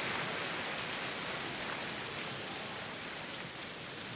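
Tennis crowd noise between points: a steady hiss of applause and murmur, slowly dying down.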